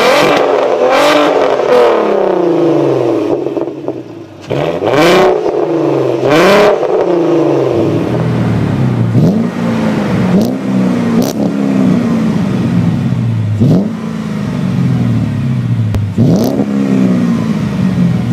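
Volkswagen Golf R32's VR6 engine revved hard in sharp blips at its tailpipes, with a short lull a few seconds in. About eight seconds in it changes to a 2001 Mercedes-Benz E55 AMG V8 with a Magnaflow exhaust, blipped over and over about once a second, each rev dropping back toward idle.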